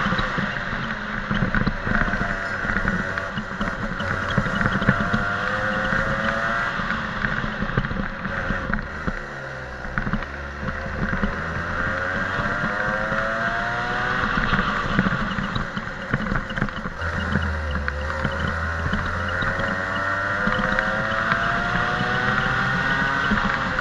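Racing kart engine heard onboard at full throttle, its pitch climbing steadily on the straights and dropping sharply as the driver backs off for corners, about nine and seventeen seconds in, with wind rushing over the microphone.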